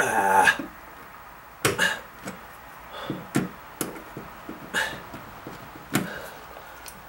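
Diagonal cutters (dykes) gripping and prying a slotted nail-pin shelf-clip anchor out of drywall, metal clicking on metal and plastic. A short scrape at the start, then about five sharp clicks a second or so apart.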